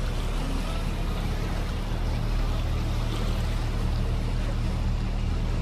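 Tour boat's engine running steadily under way, a low drone, with a constant rush of water and wind noise over it.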